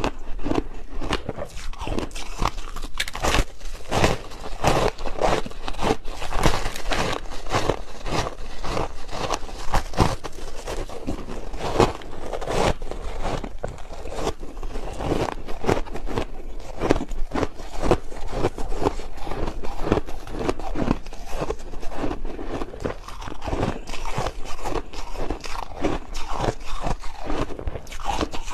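Person biting into and chewing soft crushed ice: a continuous run of close, crackly crunches, several a second.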